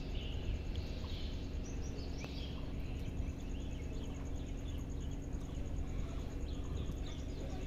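ALCO diesel-electric locomotive engine running in the distance, a steady low hum, with faint bird chirps above it.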